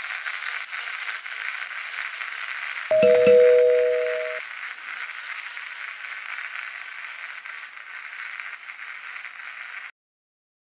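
A steady hiss runs under a loud two-note chime struck about three seconds in, which rings for about a second and a half and fades. Everything cuts off shortly before the end.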